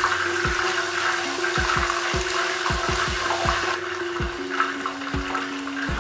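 Hot oil in a large aluminium pot sizzling steadily on the stove. Background music with steady notes and quick falling tones plays along with it.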